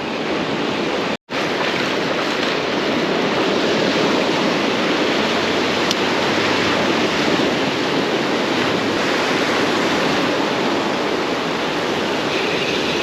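Ocean surf washing on the beach: a steady, even rush of noise. It cuts out completely for a split second about a second in.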